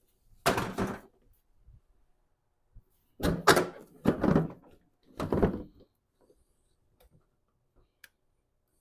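Four short bursts of knocking and scraping as parts are handled during work on a pickup's front end. The bursts are about half a second each, one near the start and three close together in the middle.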